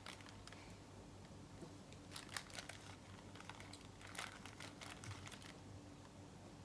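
Faint, scattered clicks of a computer keyboard, a few irregular keystrokes over a low steady hum.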